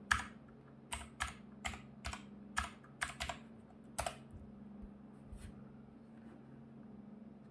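Computer keyboard typing, about nine separate keystrokes over the first four seconds, the last and loudest press about four seconds in. A low steady hum runs underneath.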